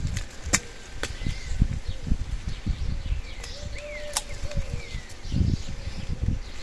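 Outdoor sound with uneven low rumbling bumps and a few sharp clicks, over which faint birds chirp a few times around the middle.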